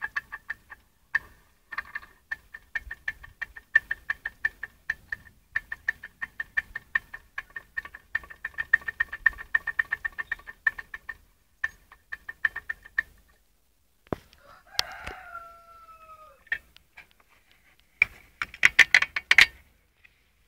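Rapid, irregular knocking or tapping of unidentified origin, several knocks a second, pausing briefly twice. A short call with falling pitch comes about three-quarters of the way in, and a dense flurry of knocks follows near the end.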